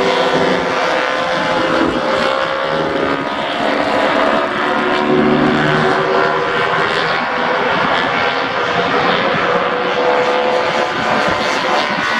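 Several vintage racing motorcycle engines running together at high revs, their overlapping engine notes holding fairly steady and gliding slowly in pitch.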